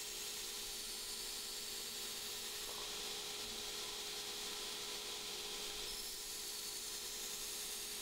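Belt grinder running while the edge bevel of a forged 4140 steel hatchet head is ground against the abrasive belt: a steady high hiss of steel on the belt over a steady motor hum.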